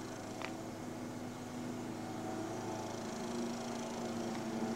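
Steady hum holding a few fixed pitches over a light hiss, with a faint click about half a second in.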